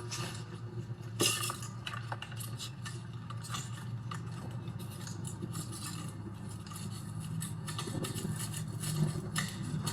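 Soft brush scratching and small plastic clicks and knocks while dust is brushed out of an electric space heater's parts, over a steady low background hum.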